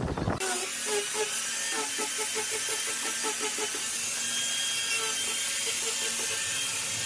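Handheld electric sander running steadily against a wooden cabinet top, sanding the wood. It cuts in about half a second in.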